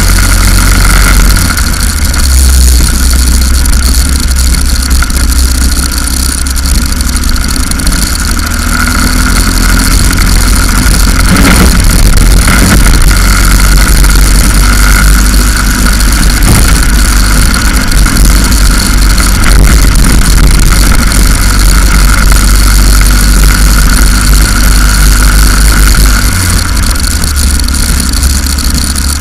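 Racing go-kart engine running hard at speed through a lap, heard from the kart itself, with a heavy low wind rumble on the onboard camera's microphone.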